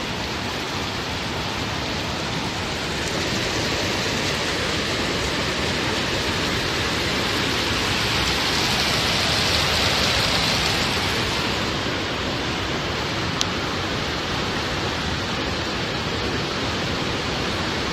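Steady, loud rush of flood water, swelling a little louder about halfway through, with a single sharp click a few seconds later.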